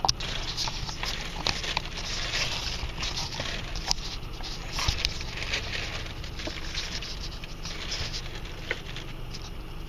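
Car cabin noise: a steady low engine rumble under a constant scatter of light crackling and rustling.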